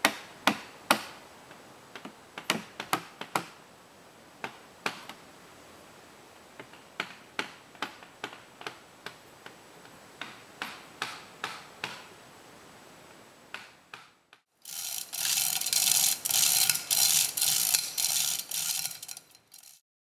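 Hand tools working wood in a pine log being carved into a dugout canoe: sharp, irregular knocks of a tool striking the wood, about one or two a second. About fourteen seconds in, a louder rasping noise in quick strokes, three or four a second, runs for about five seconds and then stops abruptly.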